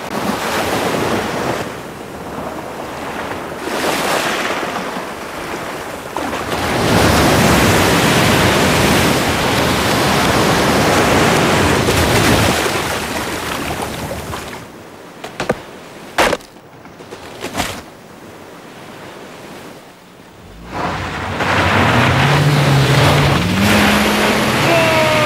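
Surf breaking and water splashing: a loud, steady rush through most of it, dropping quieter after about fourteen seconds with a few sharp knocks. Near the end a pitched sound comes in and rises in steps.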